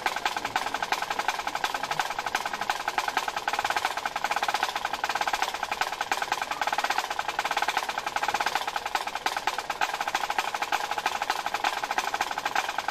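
Scottish pipe band playing: Highland bagpipes sounding over their drones, with fast snare drumming and tenor and bass drums underneath.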